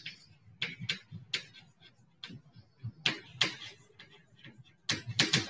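Chalk tapping and scratching on a chalkboard as words are written: a run of short, irregular clicks with brief gaps between them.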